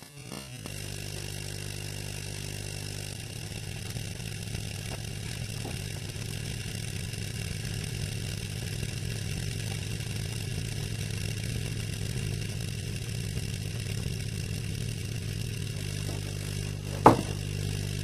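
Microwave oven transformer and magnetron switched on and running, a loud steady mains hum and buzz as microwaves fill a CRT television until its aerial glows red-hot. A single sharp crack sounds near the end.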